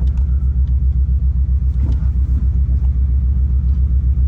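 2002 Subaru Legacy engine idling with a steady, pulsing low rumble, its sound coloured by a known exhaust issue.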